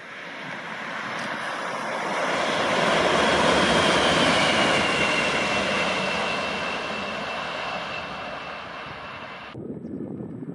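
Class 187 Bombardier TRAXX electric locomotive running light past at speed: a rush of wheels on rail builds, peaks about three to four seconds in and slowly fades, with a high whine that slides slightly down in pitch as it goes by. Near the end it cuts off suddenly to a lower rumble.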